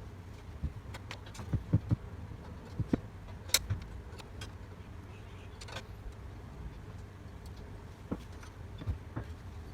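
Irregular metal clicks and clinks of hand tools and loose steel parts being handled while nuts are undone on the mower's front roller bracket, the sharpest clink about three and a half seconds in.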